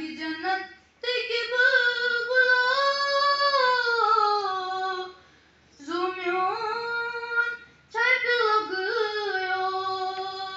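A boy singing a naat solo and unaccompanied, in long drawn-out phrases whose held notes glide up and down, with short pauses between them.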